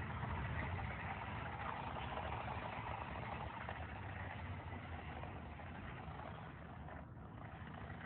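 Toy remote-control car's small electric motor and gears whirring as it drives over concrete, growing gradually fainter.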